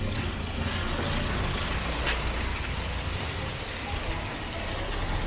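City road traffic on a wet street: a steady low rumble of passing vehicle engines under an even tyre hiss.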